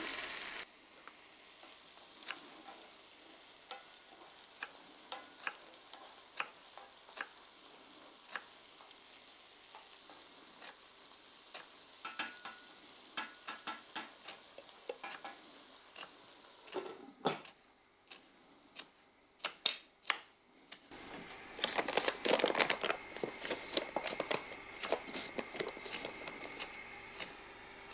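Kitchen knife chopping fresh coriander and parsley on a wooden cutting board, heard as a quick run of sharp taps, over the faint sizzle of vegetables frying in a pan. About two-thirds of the way in the sizzle grows louder, with the scrape of stirring.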